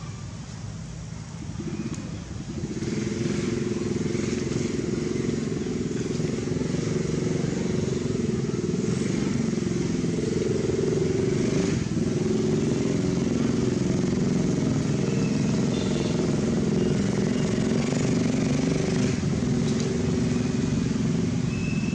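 An engine running steadily, coming in about two seconds in and holding at a constant level, with a few short high peeps over it in the second half.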